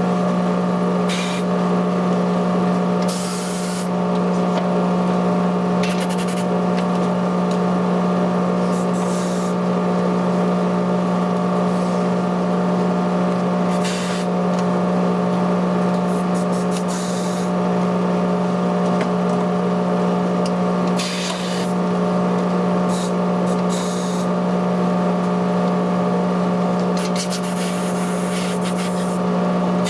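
Steady mechanical hum of tyre-shop machinery, with short bursts of compressed-air hiss every few seconds.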